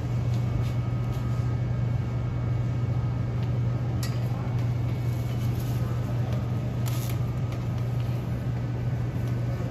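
Steady low hum of supermarket machinery around refrigerated produce cases, with a couple of faint clicks.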